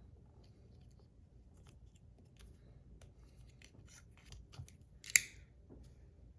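Scissors cutting through tape in a series of small quiet snips, with one sharp, much louder snip about five seconds in.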